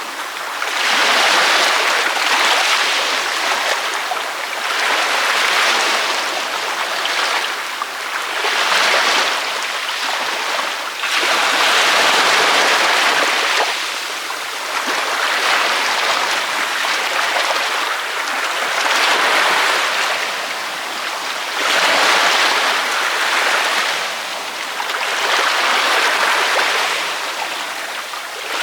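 Ocean waves breaking and washing up a beach, a continuous hiss of surf that swells into a louder crash every two to three seconds and then eases off.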